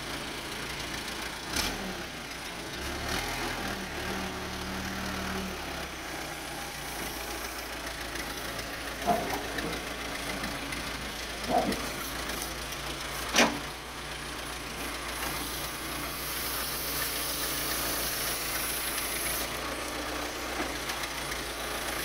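Case 580E backhoe loader's engine idling steadily, with a few short, sharp knocks over it, the sharpest about 13 seconds in.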